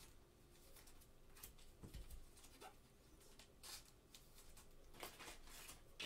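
Faint rustling and scraping of a trading card and a clear plastic sleeve handled in gloved hands, in several short, soft bursts.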